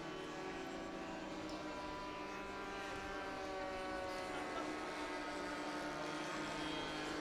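Several model aircraft engines buzzing together in the air, their pitches drifting slightly up and down as the planes turn and change speed.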